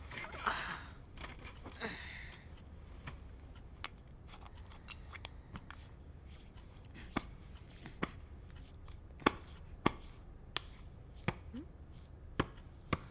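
A series of short, sharp clicks or taps at an uneven pace, roughly one a second, in the second half, over a low steady room hum.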